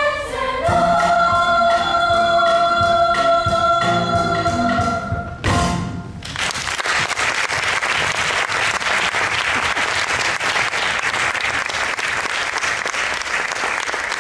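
A stage musical number ends with voices singing a long held final note over the accompaniment, closing on a final chord about five and a half seconds in. The audience then applauds.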